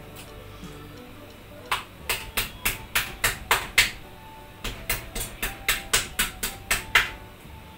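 A kitchen knife striking a raw chicken breast on a countertop: sharp knocks about three or four a second, in two runs with a short pause between. Faint background music underneath.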